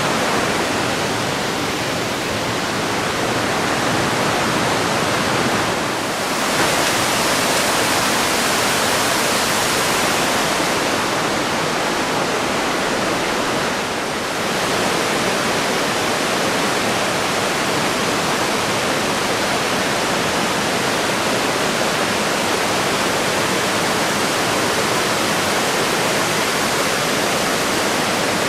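Waterfall pouring: a loud, steady rush of falling water. It grows brighter about six seconds in and dips briefly around fourteen seconds.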